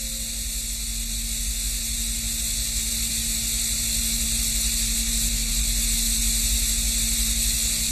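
Steady hiss with a low, even hum underneath: the background noise of an old analogue television recording, with no music or voice.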